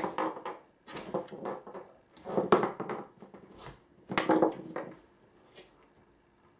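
Crinkly fabric of a pop-up cat play cube rustling in four short bouts as a cat paws at it and brushes against it.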